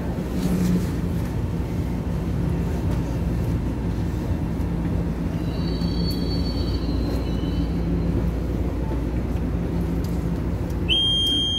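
Interior of a Taiwan Railway commuter electric multiple unit standing at a platform: a steady low rumble and hum from the train's equipment. Near the end a high electronic beep starts and holds for about a second and a half.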